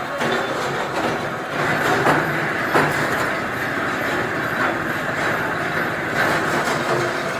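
Ammunition production machinery running, a dense, steady metallic clatter of many small rapid impacts.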